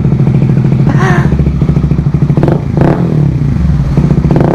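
Honda CBR150R's single-cylinder engine running through an Akrapovic aftermarket muffler with its silencer insert removed: a loud, full, thumping exhaust note.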